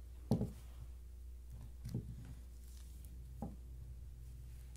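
Plastic toy animal figures set down on a cloth-covered table: three soft knocks about a second and a half apart, over a steady low hum.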